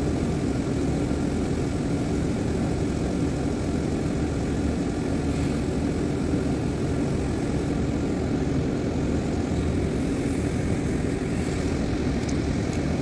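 Steady low engine drone of a flatbed tow truck running its winch while a car is pulled up the tilted bed.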